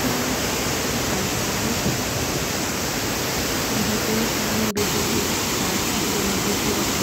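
Steady, loud rush of a waterfall cascading over rock ledges into a pool, with a momentary dropout in the sound about two-thirds of the way through.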